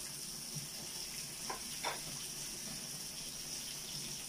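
Samgyupsal (pork belly) and other food sizzling on a tabletop grill pan, a steady hiss.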